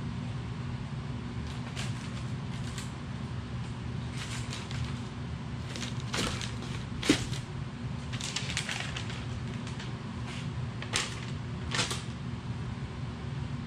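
Scattered light clicks, clinks and rustles of parts and tools being handled at a workbench, with one sharper clack about halfway through, over a steady low hum.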